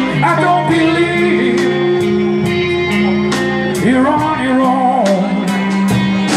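Live electric blues band playing an instrumental passage between vocal lines: electric guitars, bass and drum kit with cymbal hits, and a lead line that bends in pitch.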